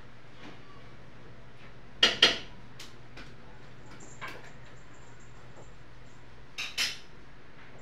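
A spoon clinking against a metal bowl as lumpia filling is scooped out: two quick clinks about two seconds in, a faint one past the middle, and two more near the end.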